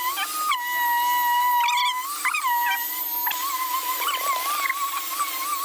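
Sped-up time-lapse audio of the concrete work: a steady, high machine-like whine that starts wavering up and down in pitch about halfway through, with a few short chirping glides over it.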